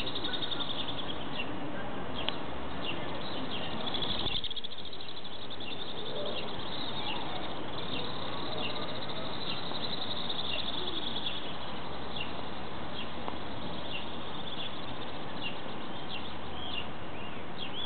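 Birds calling: many short, high chirps with a few longer high trills, over a steady faint low background rumble.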